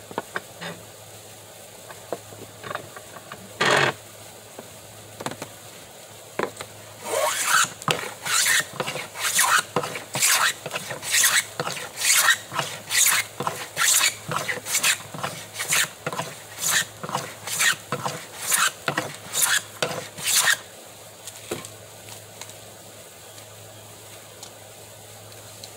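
Hand plane worked over the edge of a wooden board in quick, short passes, about two strokes a second for some thirteen seconds, each a loud scraping swish as it takes a shaving, truing the board up to square. A few separate knocks come before it.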